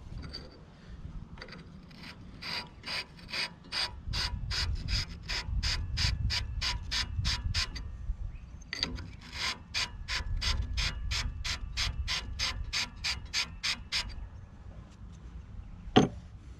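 Hand winch on a Lucas portable sawmill being cranked to set the saw carriage height, its ratchet pawl clicking about four times a second in two runs of several seconds with a short pause between. A single sharp knock near the end.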